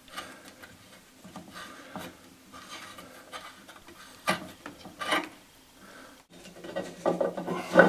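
Metal scraping, rubbing and clicking as the nuts on an old brass tap's fittings are loosened and turned off with a shifting spanner. There are two sharper knocks about four and five seconds in, and the scraping gets busier near the end.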